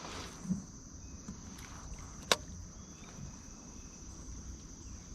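Insects, crickets, trilling in a steady high thin tone, with a single sharp click a little over two seconds in.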